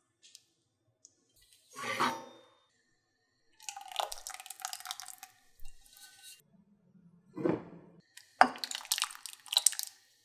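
A butter-and-flour roux poured from a pan into a pot of potato broth, with liquid splashing and dripping sounds in several separate bursts.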